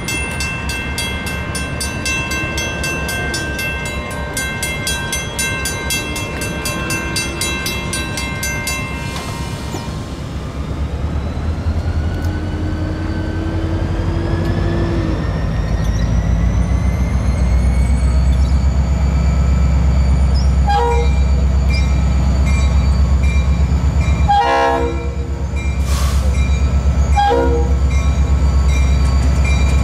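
Diesel locomotive of a Florida East Coast train approaching: its engine rumble builds about ten seconds in and stays loud, with a slowly rising whine. Several horn blasts sound in the second half, the later ones longer.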